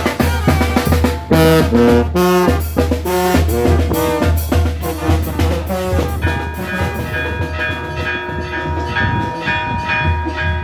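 Brass band music: trumpets and trombones playing a melody over a sousaphone bass line, with bass drum, cymbal and snare drum keeping the beat. About halfway through, the short stepping notes give way to longer held chords.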